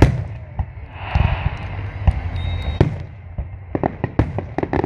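Aerial fireworks shells bursting: a couple of deep booms, then a rapid string of crackling pops near the end.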